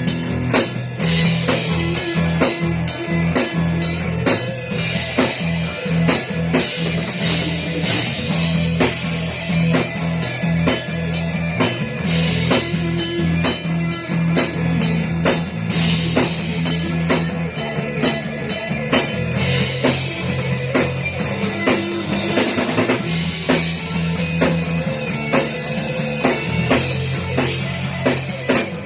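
A band jamming a rock tune: drum kit keeping a steady beat, with guitar and bass.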